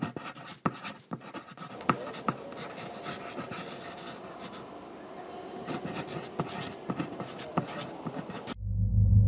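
Ballpoint pen scratching across paper, writing in quick strokes with frequent small taps and clicks of the tip. Near the end it cuts off and a low rumble takes over.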